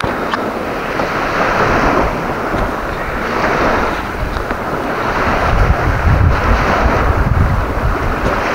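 Wind-driven waves washing onto the sandy shore of a reservoir in rising and falling swells, with strong wind buffeting the microphone, heavier in the second half.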